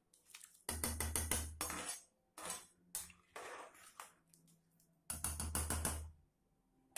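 Metal utensils scraping and clinking against a metal pot as soaked rice is tipped into boiling water in an aluminium pressure cooker and stirred with a ladle. The rattling comes in two main bouts, about a second in and about five seconds in, with shorter clinks between.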